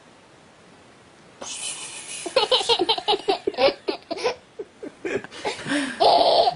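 A person laughing in quick bursts, starting about a second and a half in after a breathy rush of air, with a loud outburst near the end.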